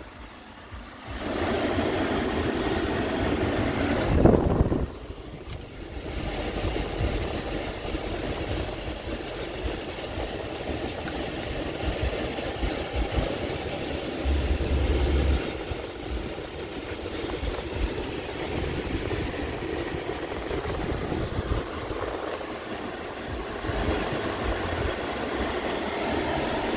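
Steady cabin noise in an idling Mercedes-Benz C 300: the climate-control blower is running on a high fan setting, with the engine idling underneath. The noise is louder for the first few seconds, then drops and holds steady.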